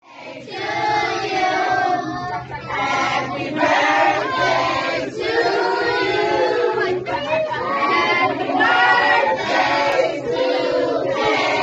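A group of party guests singing together in chorus, many voices at once in phrases that break every second or two.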